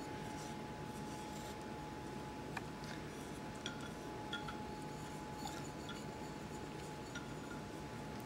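Faint, scattered light clinks and scrapes of a whisk and a tilted bowl against a stainless steel mixing bowl as beaten egg yolk is scraped from one bowl into the other. Under them run a steady faint hiss and a thin steady whine.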